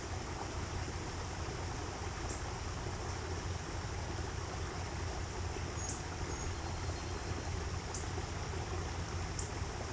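Steady rush of flowing water from the aviary's stream, with a few brief, high bird chirps scattered through it.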